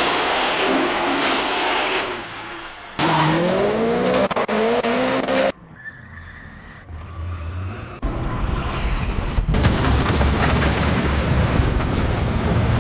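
Car sound effects cut one after another: tyre skidding and car noise, then a rising whine from about three seconds in that cuts off abruptly. A quieter low hum follows, then from about eight seconds loud, rough car and tyre noise with a low rumble.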